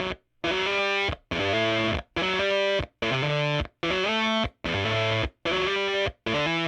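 Electric guitar through a Jext Telez Dizzy Tone V7 fuzz pedal with its attack knob halfway down, which thins the fuzz. About eight short fuzzed chords are played in a steady rhythm, each cut off sharply to silence, with the chord changing as they go.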